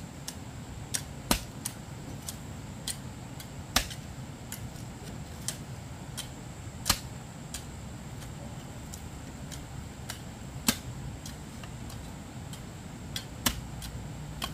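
Irregular sharp taps or clicks, one every second or so to every few seconds, over a steady low background hum and a faint steady high whine.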